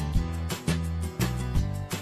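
Background music with a steady beat: a bright, evenly struck melody over sustained bass notes.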